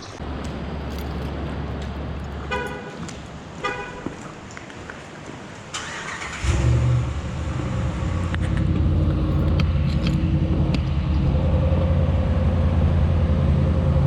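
A car horn gives two short chirps about a second apart. A few seconds later the car's engine starts and keeps running at a steady idle.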